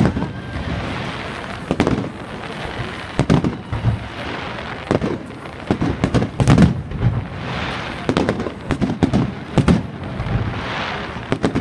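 Aerial firework shells bursting in quick succession: a dense string of sharp bangs in clusters, loudest a little past halfway.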